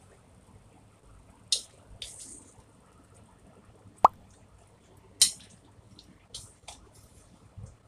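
Wooden chopsticks lifting stir-fried baby bok choy out of a metal wok into a bowl. A few short scrapes and wet squishes of the leaves are heard, with one sharp ringing tap of the chopsticks about four seconds in.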